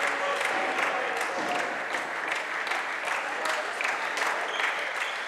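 Handball game sounds echoing in an indoor sports hall: players' and spectators' voices and shouts, with frequent irregular sharp knocks and claps.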